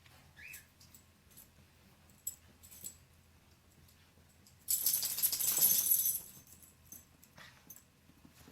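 A dog's metal collar tags jingling in one quick burst of about a second and a half, a little past the middle, with a few faint ticks before and after.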